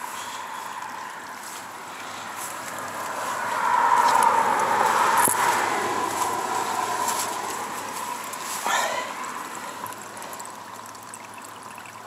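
Runoff water trickling along a freshly dug drainage trench, a steady watery hiss that swells louder for a few seconds in the middle. A short falling sound comes about nine seconds in.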